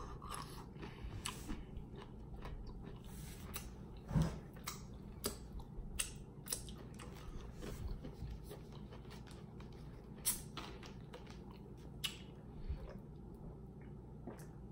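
Close-miked eating sounds: chewing and crunching of cucumber spears with irregular sharp mouth clicks, then a plastic drink bottle being opened and drunk from.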